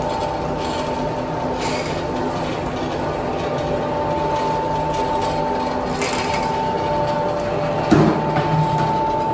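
Motorised wooden oil press (ghani) running, its pestle turning in a wooden mortar full of peanuts, with a steady mechanical whine from the drive. A short high squeak comes about every four seconds, and a single knock sounds near the end.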